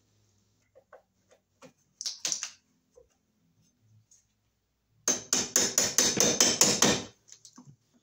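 Wire mold switch box plate being tapped down into place with pliers. A few light taps, a short cluster of strikes about two seconds in, then a rapid run of about ten sharp taps over some two seconds, starting about five seconds in.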